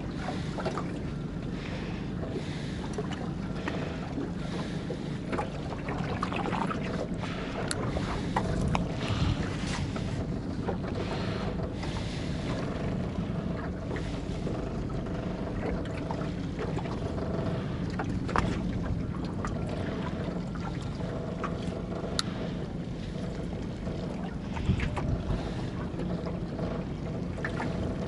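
Steady hum of a small boat's motor running, with wind buffeting the microphone and a few sharp knocks and clicks on board.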